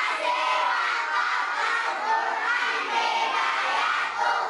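A large group of children shouting and chanting together.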